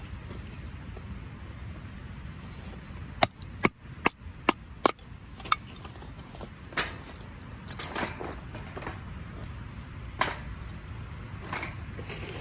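Firewood being split by batoning, a knife driven into a log by blows from a wooden baton: about six sharp wooden knocks in quick succession, then a few softer cracks and splintering sounds as the wood gives.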